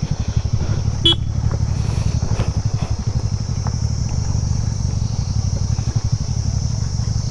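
TVS NTorq scooter's single-cylinder engine running under way, a steady chug of rapid low pulses, with one brief sharp sound about a second in.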